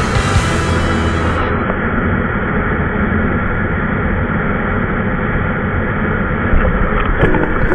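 Motorcycle riding at a steady speed, its engine and wind noise picked up by an onboard camera as a steady, muffled rumble. Title music cuts out about a second and a half in, and music starts again near the end.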